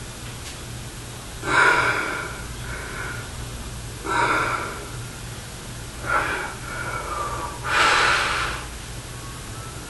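Four forceful breaths from a man straining through flexing poses, about two seconds apart, over a steady low hum.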